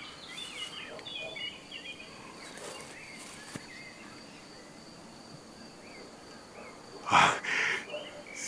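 Woodland ambience: small birds chirping over a steady high insect whine. About seven seconds in there is a loud rustle of leafy branches, twice in quick succession.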